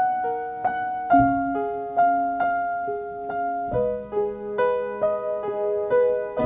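Background piano music: a slow melody of single struck notes, about two a second, each ringing and fading over held lower notes.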